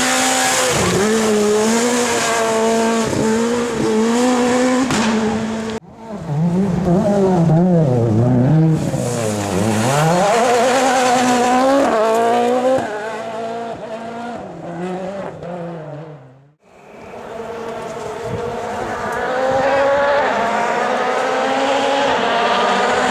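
Rally car engines at high revs across three separate shots. One holds a steady pitch, one revs sharply up and down through gear changes and lifts, and one falls in pitch as the car goes past before another car's engine rises in the last part.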